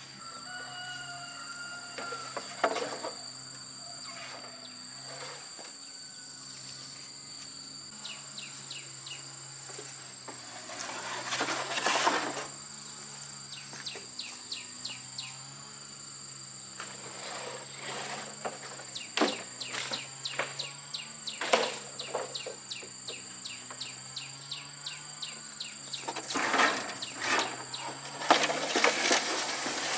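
Insects keep up a steady high-pitched drone, with a few bird chirps in the first couple of seconds. Scattered knocks and clatter of handling come and go, thickest near the middle and toward the end.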